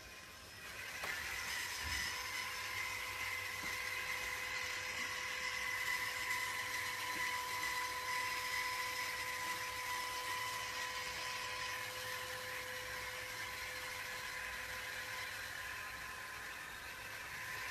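Electric motor of a LitterMaid self-cleaning litter box whirring as it drags its rake comb through the litter. The steady whine starts about a second in.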